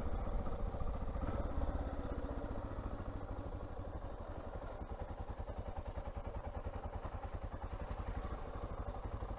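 Honda XR600R's single-cylinder four-stroke engine running at low revs, its exhaust pulses coming through as an even, rapid thumping. It eases off over the first few seconds, then holds steady near idle.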